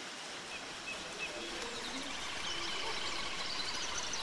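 Birds chirping and calling over a steady outdoor hiss, the calls growing busier about halfway through.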